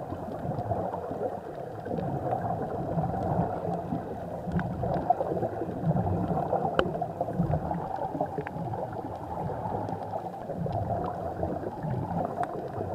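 Muffled underwater noise with low gurgling, recorded with the camera submerged, and scattered faint clicks.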